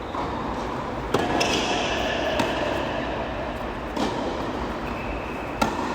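Tennis rally: a ball struck back and forth with rackets, four sharp hits about a second and a half apart.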